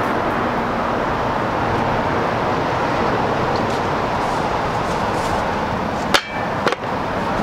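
A steady rushing noise, then two sharp knocks about half a second apart near the end: a wooden longboard knocking against a metal bike rack.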